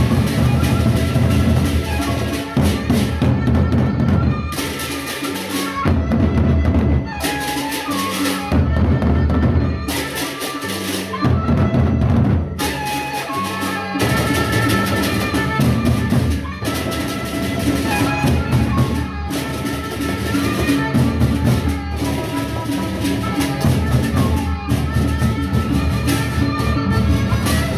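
Gendang beleq ensemble playing: large double-headed drums beaten with sticks in a dense interlocking rhythm. Steady ringing metal tones run over the drums, with bright clashing bursts every few seconds.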